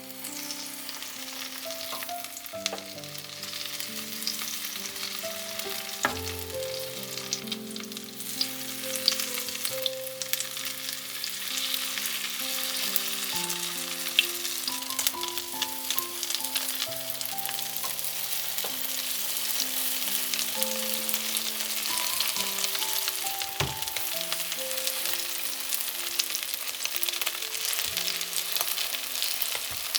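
Food frying in hot oil in a pan: a steady sizzle with small pops and crackles, over soft background music of sustained notes.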